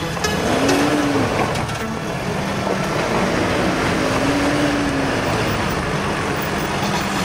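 Nissan Pathfinder 4x4 engine pulling under load as it climbs over axle twisters, the revs rising and falling twice, with tyres grinding and crunching over dirt and rock.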